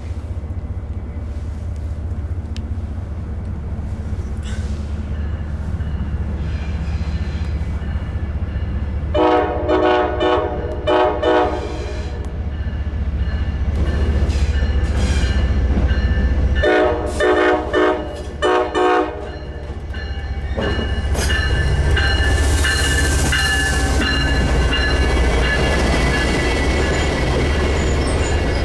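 Diesel train locomotive running with a steady low rumble, sounding its horn in two series of short blasts, about nine and seventeen seconds in. Then the train passes, its wheels clattering over the rails with a high hiss.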